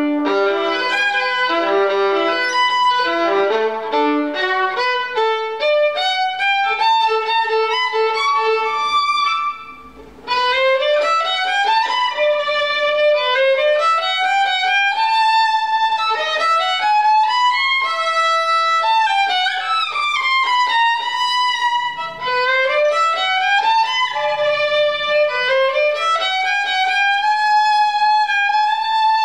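Solo violin played with the bow: a fast passage of quick short notes, a brief break about ten seconds in, then repeated rising scale runs climbing up to held high notes.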